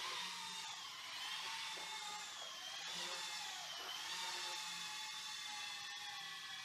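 Modster BO-105 RC scale helicopter in flight: a steady high whine from its electric motor and rotors. The pitch wavers, dipping and recovering a couple of times near the middle as the throttle changes during manoeuvring.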